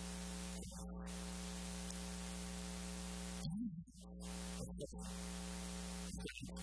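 Steady electrical mains hum with hiss from the sound system, cutting out briefly a few times, about a second in, between three and four seconds in, and near the end.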